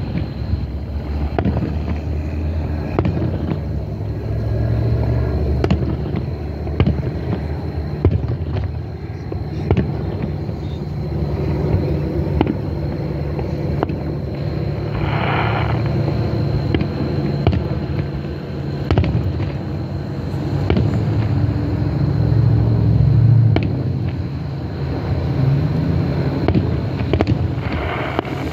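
Aerial fireworks bursting at a distance: irregular bangs and crackles over a steady low rumble.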